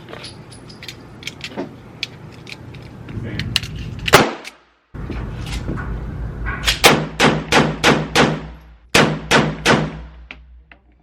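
Gunshots from a 300 Blackout rifle: one shot about four seconds in, then two rapid strings of shots at about four a second, emptying the magazine.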